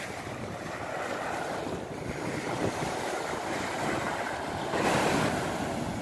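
Sea waves breaking and washing up a beach, a steady surf hiss with some wind on the microphone. A wave surges louder about five seconds in.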